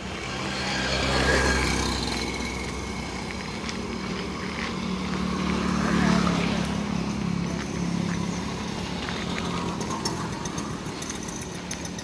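Motorcycle engines running as motorbikes pass along the road, the hum swelling about a second in and again around six seconds.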